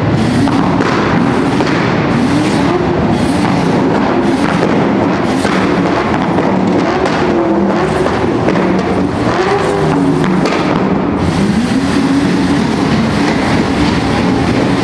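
Modified cars revving hard in a tunnel, the engine notes rising and falling and echoing off the walls. A rapid string of exhaust pops and bangs runs through it, with a Holden Commodore ute's exhaust spitting flames.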